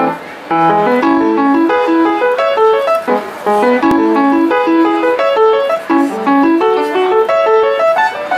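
Piano played by a young child: a continuous tune of quick, separate notes, a melody over a lower accompanying line. A single sharp click about four seconds in.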